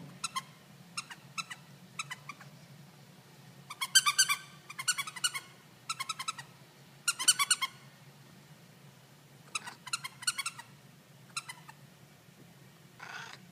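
Maine Coon cat making short, pitched chirping trills in several separate bursts, over a faint steady low hum.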